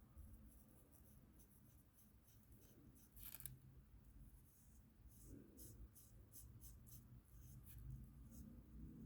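Faint scratchy strokes of a coloring tool on paper, coming in short runs, with a louder stroke about three seconds in.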